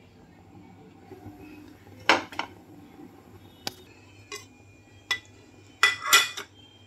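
Metal cookware and utensils clanking and clinking: scattered sharp knocks, some followed by a brief ringing, with a loud pair about two seconds in and a quick cluster of knocks near the end.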